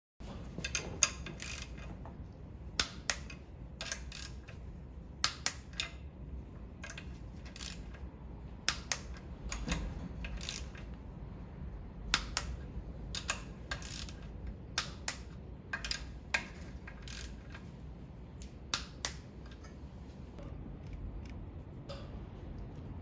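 Socket ratchet clicking in short runs of a few sharp clicks, repeated every second or two, as the oil filter housing bolts are tightened.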